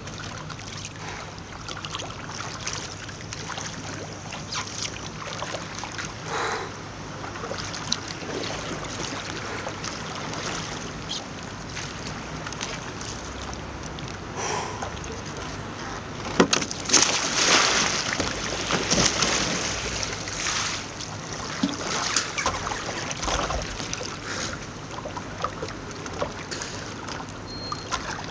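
Kayak paddle blades dipping and splashing in calm river water, with scattered small splashes and drips, and a louder stretch of splashing a little past halfway through.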